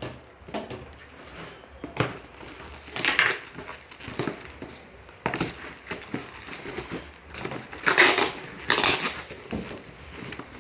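Cardboard box and packing material being pulled open and handled: irregular scraping, tearing and crinkling, loudest about three seconds in and again around eight to nine seconds in.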